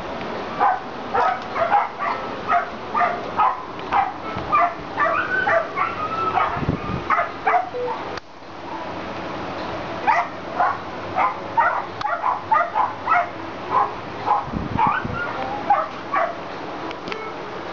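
Kennelled dogs barking in a rapid run, about three barks a second, stopping for about two seconds just past the middle before starting up again.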